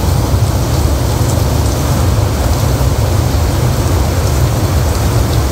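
Loud, steady rain noise: an even rushing hiss with a strong low rumble underneath.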